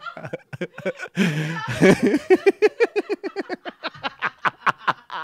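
A man laughing hard into a close microphone: a long run of rapid, pitched 'ha' pulses, several a second, that thin out near the end.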